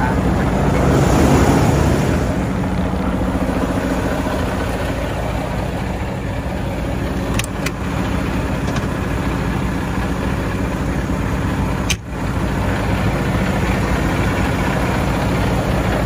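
Semi truck's diesel engine idling steadily, heard up close, with a brief break in the sound about twelve seconds in.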